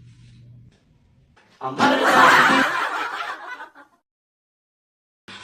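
A burst of laughter lasting about two seconds, starting about one and a half seconds in.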